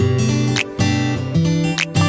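Background music led by strummed acoustic guitar, with a melody changing note every fraction of a second.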